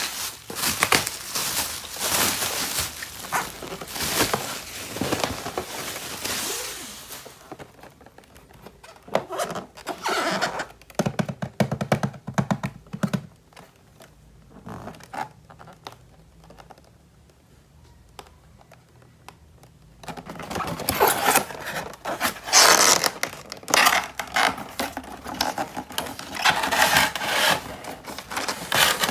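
Plastic toy pieces and packaging handled close to the microphone: a run of clicks, knocks and scrapes, a quieter stretch of scattered taps in the middle, then denser, louder scraping and rustling near the end.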